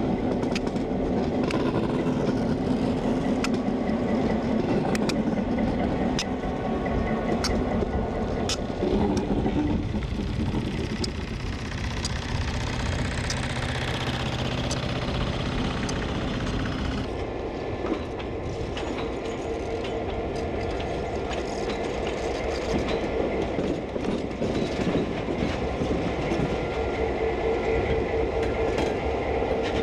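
A freight train rolls past. The diesel locomotives' engines run steadily while the wheels click over the rail joints, and there is a louder rushing noise as the rear of the train goes by. About halfway through this changes abruptly to a second diesel locomotive moving slowly past with its engine running and its wheels clacking over the track.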